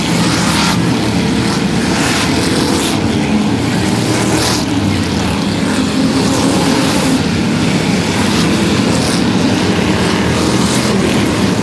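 Engines of a large field of derby race cars running hard together in a steady loud din, with a few short sharp noises over it.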